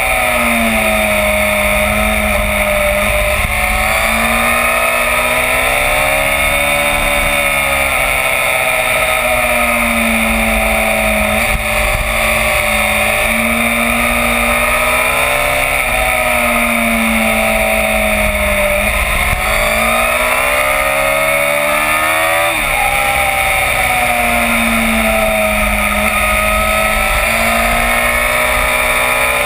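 Yamaha FZ1's inline-four engine heard from on board while riding, its note rising and falling with the throttle through a string of curves, with a sharper drop about three-quarters of the way through. Steady wind rush on the microphone underneath.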